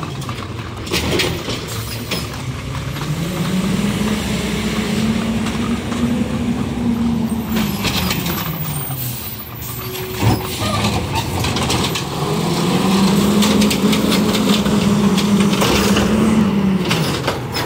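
Automated side-loader garbage truck's diesel engine revving up, holding and dropping back twice as it runs the hydraulics, with clanks and a brief hiss between the two revs.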